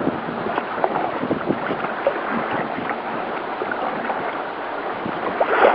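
Wind-driven choppy waves splashing and slapping against a kayak's hull: a steady wash of water noise with many small splashes.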